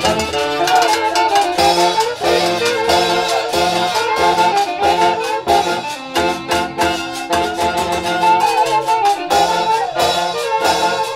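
A Huánuco-style orquesta playing live: saxophones and trumpets carry a melody together over a steady beat.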